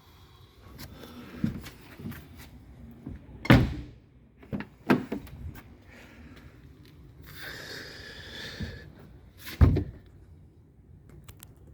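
Ford Focus rear car door being opened and shut: two heavy thuds about six seconds apart, with lighter clunks of the latch and door in between. The door is being checked after its torn spot-welded mounting was fixed with bolts and screws.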